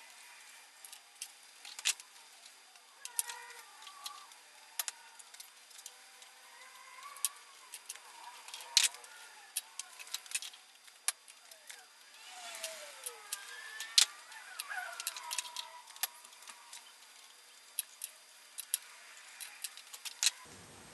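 Scattered sharp metallic clicks and clinks as small valve-train parts and tools are handled on a cylinder head, with birds chirping faintly in the background.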